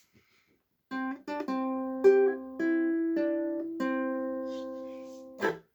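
Ukulele strumming a short run of chords starting about a second in, about seven strokes; the last chord rings out and fades before a brief muted stroke near the end.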